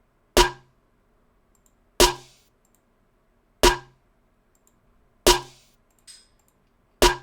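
Dubstep snare drum sample played back on its own in a DAW: five single snare hits about 1.6 seconds apart, each with a short ringing decay.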